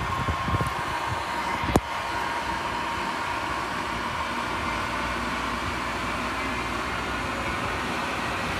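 Amtrak ACS-64 electric locomotive rolling slowly past, giving a steady whirring hum with a faint high whine. A single sharp click comes about two seconds in.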